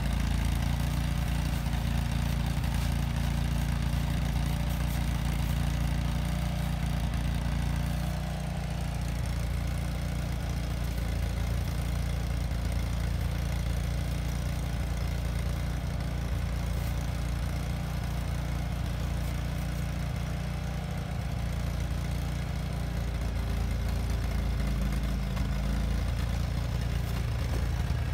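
An engine idling steadily: a low, even hum.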